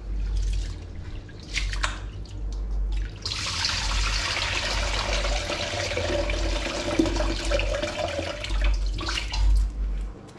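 Rice being washed by hand in a metal pot at a stainless steel sink: swishing and splashing at first, then about three seconds in a steady stream of water pouring into the sink for about five seconds as the rinse water is poured off, ending in a few knocks and splashes.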